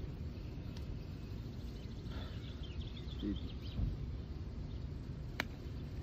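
Outdoor ambience with a steady low rumble, a bird chirping in a quick run about two seconds in, a short grunt from the man doing push-ups about three seconds in, and one sharp click near the end.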